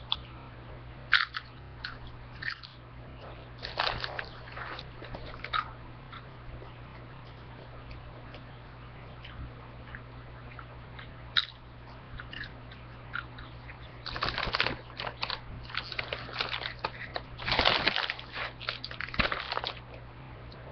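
A person crunching and chewing chips close to the microphone: a few scattered crunchy bites, a quieter stretch, then a dense run of crunching for the last several seconds.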